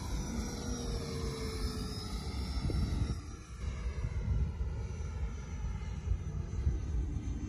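Whine of the 80 mm electric ducted fan of an FMS F-16 RC jet flying past, wavering and sliding down in pitch over the first few seconds, then weaker. A steady low rumble lies under it.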